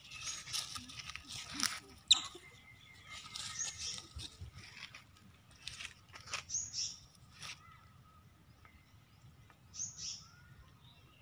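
Scattered short, high-pitched chirps and squeaks, about a dozen, with a quieter stretch about two-thirds of the way in.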